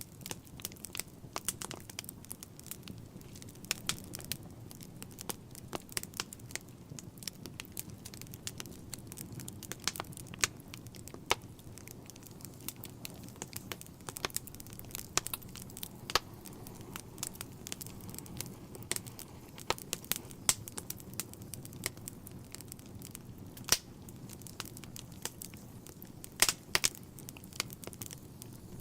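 Wood fire burning in a fireplace, crackling with frequent irregular sharp pops over a low steady rush of the flames. A couple of louder snaps come in the last few seconds.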